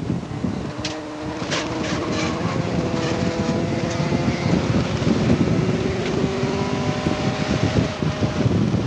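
Inside the cabin of a 1988 Honda CRX Si race car, its 1.6-litre four-cylinder engine pulls under load, rising steadily in pitch as the car accelerates out of a corner. Heavy wind and road noise run underneath, with a few sharp clicks in the first couple of seconds.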